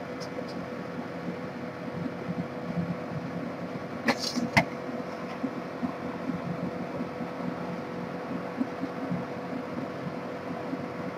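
Steady background hum with a faint held tone. About four seconds in, two sharp clicks half a second apart with a brief scrape between them: drawing instruments handled on the drawing sheet.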